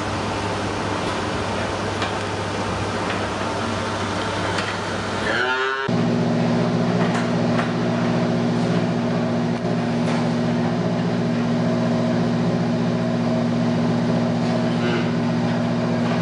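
Steady machinery hum with a calf's short bawl, rising in pitch, about five seconds in. Just after it the hum changes abruptly to a louder, deeper one made of several steady low tones.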